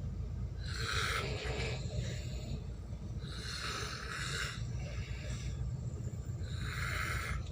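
A sleeping person snoring, a rasping breath about every three seconds, over the steady low drone of the ship's engines.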